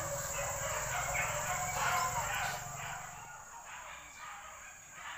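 Excited hunting dogs whining and yelping in short high-pitched calls, fading about three seconds in.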